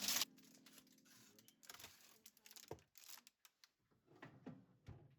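Faint scattered clicks and soft rustling of small objects being handled.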